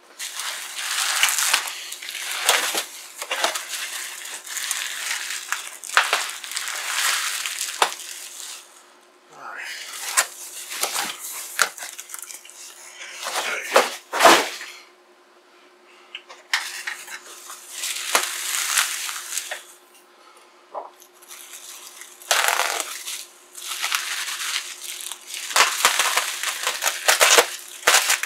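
Bubble wrap and cardboard packing rustling and crinkling in irregular bursts as a bubble-wrapped computer is handled and unwrapped, with a thump about halfway through. A faint steady hum sits underneath.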